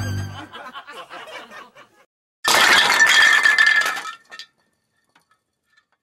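Comedy show music trails off, then a bright clinking, glassy jingle lasts about two seconds and stops.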